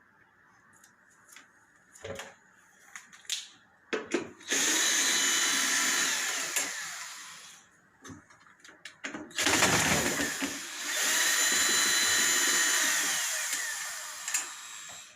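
Cordless power screwdriver running twice, a few seconds each time, its whine rising as it spins up and dropping as it slows, as it drives screws during reassembly of a washing machine. A few small clicks of handling come before it.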